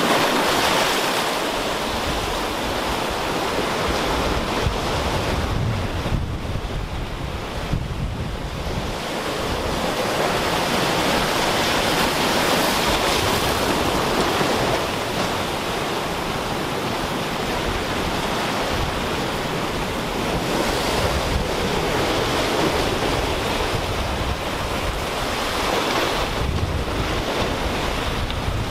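Ocean surf breaking and washing over a rocky shoreline, swelling louder and easing several times, with wind buffeting the microphone in low rumbling gusts.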